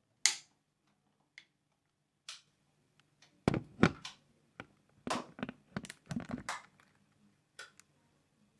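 Scattered clicks, knocks and thuds of a camera tripod and video camera being carried and set up, with a few footsteps, over a faint low hum. A sharp click comes about a quarter second in, and a cluster of heavier thuds comes in the middle.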